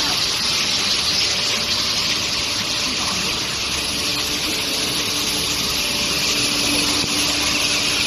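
Steady rushing hiss of a running long-bar induction hardening and tempering line, with a faint hum joining about three seconds in.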